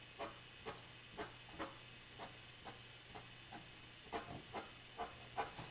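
Marker tip tapping out short tick marks on paper, a dozen or so quick strokes at about two a second.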